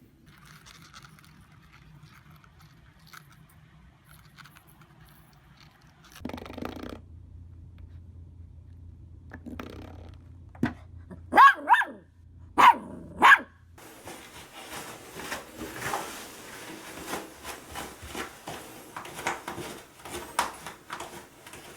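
A dog barking: a few short, loud barks about halfway through.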